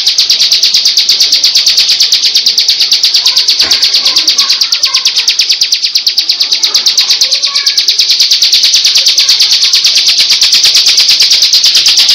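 Bar-winged prinia (ciblek) singing its 'ngebren' song: a loud, high, unbroken rapid trill of many notes a second, without a pause.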